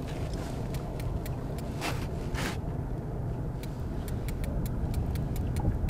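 Fishing reel clicking rapidly, about four to five light clicks a second, as line is wound in over a steady low rumble. Two short hisses come about two seconds in.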